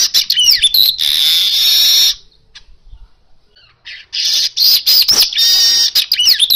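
Asian golden weaver (manyar emas) singing in two bouts with a pause of about two seconds between them. Each bout is squeaky, gliding notes running into a long, dry buzzing wheeze.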